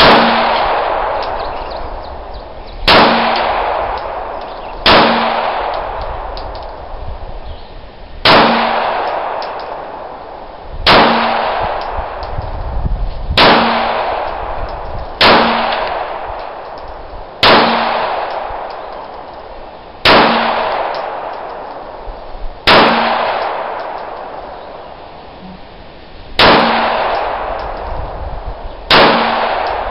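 Taurus PT-24/7 Pro DS 9 mm pistol fired in slow, deliberate single shots, about a dozen of them two to three seconds apart, each loud report trailing off in a long echo.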